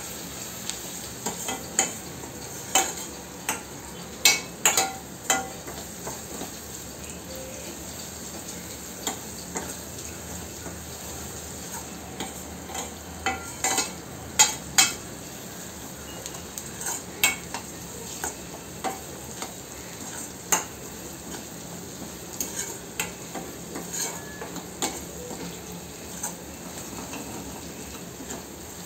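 Chopped onions, garlic and green chillies sizzling in oil in a stainless steel kadai, while a steel spoon stirs them, clinking and scraping against the pan at irregular moments.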